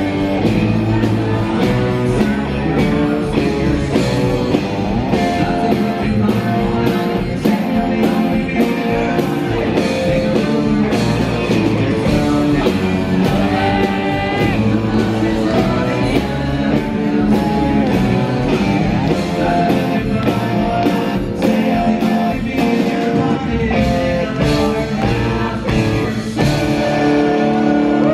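Live rock band playing with drums, electric guitar and keyboard, with a singer's voice over a steady drum beat.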